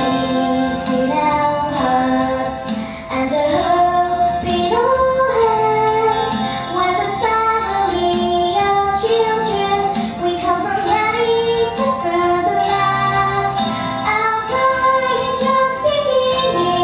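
Children's school choir singing a song together, with lower instrumental notes held steadily underneath the voices.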